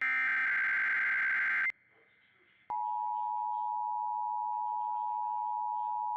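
Emergency Alert System SAME header: a loud data burst of two alternating high pitches (about 1560 and 2080 Hz) that cuts off about a second and a half in. After a second's pause, the two-tone EAS attention signal (853 and 960 Hz together) starts and holds steady.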